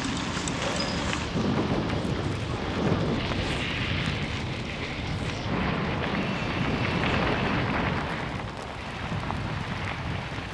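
Wind buffeting the microphone of a camera on a moving touring bicycle: a steady, rumbling noise that dips briefly near the end.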